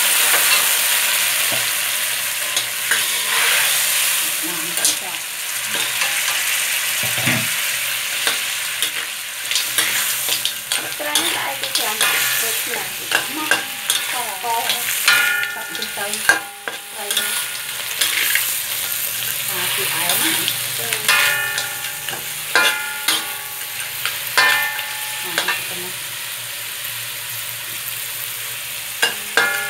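Oil sizzling in a metal wok as field crabs are stir-fried, with a metal spatula scraping and knocking against the wok again and again.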